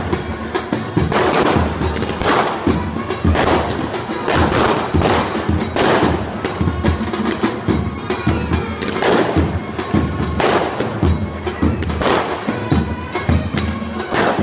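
Loud procession band percussion: pounding drums in a steady beat with a crash about every second.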